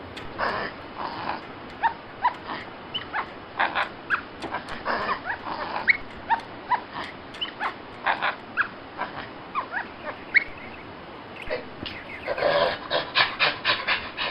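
Dogs yipping and whimpering: many short, high calls, with a quick run of yelps near the end.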